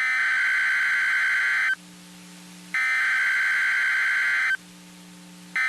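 Emergency Alert System SAME header data bursts: a buzzing digital tone about 1.75 s long, a one-second pause, a second identical burst, and a third beginning near the end. The bursts mark the start of an EAS activation, here a Child Abduction Emergency. A faint low hum fills the pauses.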